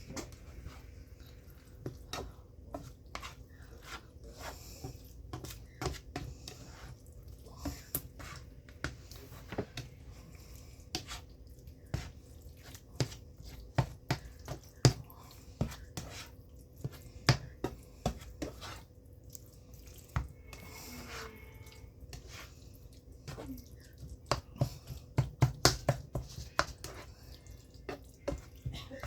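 Spoon stirring sloppy joe meat sauce in a pan: irregular clicks and knocks of the utensil against the pan, coming faster near the end, over a faint steady hum.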